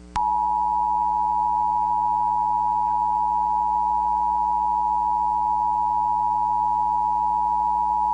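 Emergency Alert System attention signal: two steady tones sounding together just below 1 kHz, starting a moment in and held unchanged, over a faint low hum.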